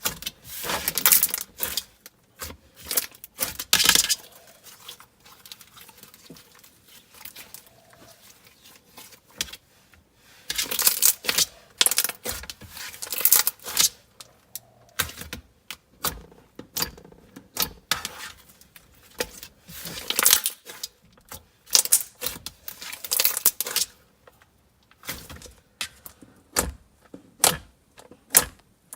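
Thick, glossy butter slime being pressed, poked and stretched by hand, giving irregular clusters of sharp crackling pops and clicks with short pauses between them.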